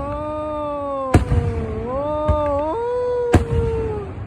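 Fireworks display: aerial shells bursting with sharp booms, two strong ones a couple of seconds apart and a weaker one between them. A long wavering tone runs under them, bending and stepping in pitch.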